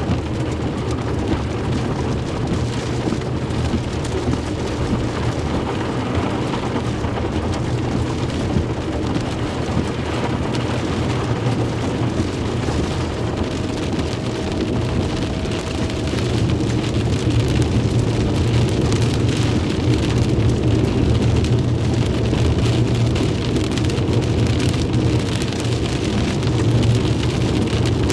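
Heavy rain pouring down in a severe thunderstorm, a dense steady hiss over a constant low rumble, growing somewhat louder about two-thirds of the way through.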